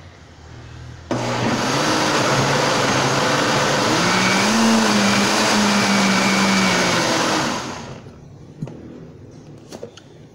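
Countertop blender motor switched on about a second in and run for about seven seconds, briefly mixing baking powder into corn cake batter, then winding down. A few light knocks follow near the end as the jug is lifted off the base.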